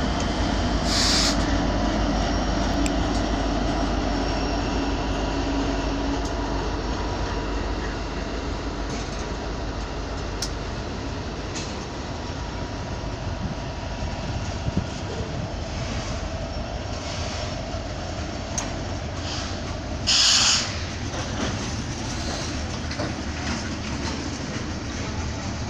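A mixed freight train passing behind a lash-up of BNSF diesel locomotives. At first there is a heavy low engine rumble, which eases after the locomotives go by. Then the freight cars roll past with steady wheel-on-rail clatter, and wheels squeal briefly about a second in and again about twenty seconds in.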